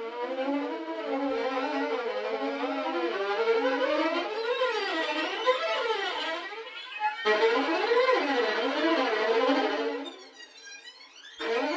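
Sampled solo violin effect textures from the 8Dio CASE Strings library, played in turn from a keyboard: wavering, swooping glissando lines. One texture cuts off about seven seconds in and another begins. A quieter, high sweeping sound comes before a new texture starts near the end.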